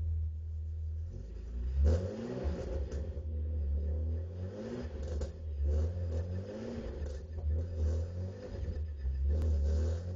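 Opel Monza GSE's engine running, its pitch rising and settling about four times, while the gear lever of the Getrag 265 five-speed gearbox is moved through the gears with a few light clunks.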